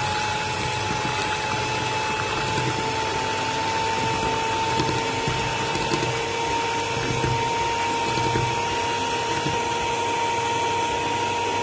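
Electric hand mixer running, its twin beaters whisking eggs in a glass bowl. The motor's steady whine creeps slowly higher in pitch as the speed is raised.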